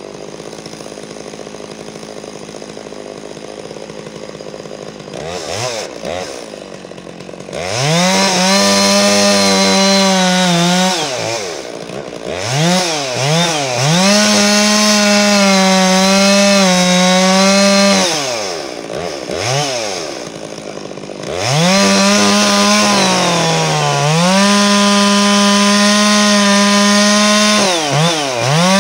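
Two-stroke chainsaw cutting into the trunk of a large tree being felled. It runs low and quieter for the first several seconds, then goes to full throttle about eight seconds in, its engine speed sagging and recovering several times as it is pulled back and pushed into the cut.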